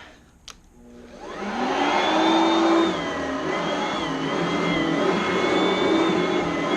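Oreck Elevate Conquer upright vacuum cleaner switched on, with a click about half a second in. Its motor spins up with a rising whine and then runs steadily at full speed, its pitch wavering slightly.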